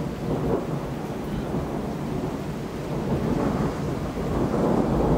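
Thunder rumbling through a thunderstorm, swelling louder over the last couple of seconds.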